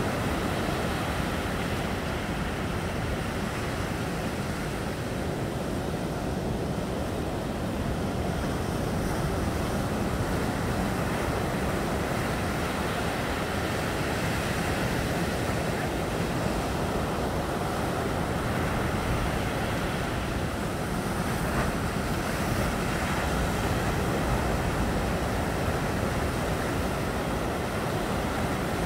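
Ocean surf breaking and washing up over sand and rocks: a steady, continuous rush of waves with no single standout crash.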